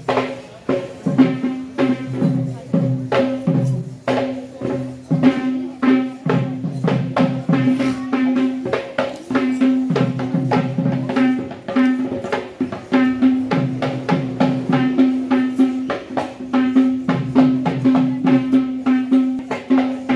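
Traditional drumming in a fast, busy rhythm, with a steady held note sounding over it that breaks off briefly every few seconds.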